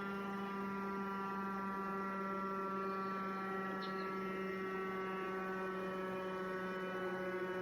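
Motor siren holding one steady tone rich in overtones, sounding the evening 6 p.m. time signal.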